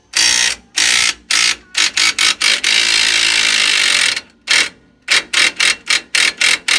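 Electric impact wrench hammering on a rear suspension bolt in a quick string of short trigger bursts, with one longer run of about a second and a half in the middle, breaking the bolt loose.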